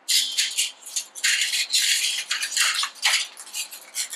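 Sheet-metal half outer band and its clamp hardware rattling and scraping against the metal chimney pipe as the band is fitted around it: a rapid, irregular series of high metallic clinks and scrapes.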